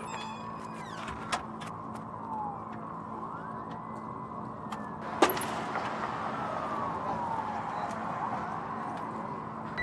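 Night street ambience: a steady hum with a distant siren slowly rising and falling, and a door banging shut about five seconds in.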